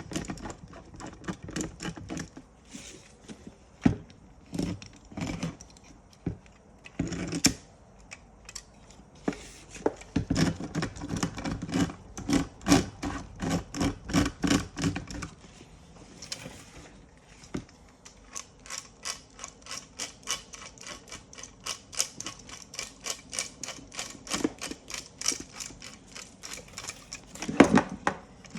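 Toyota seatbelt retractor being handled and turned: a long run of small sharp plastic and metal clicks and taps, in places a fast, even clicking.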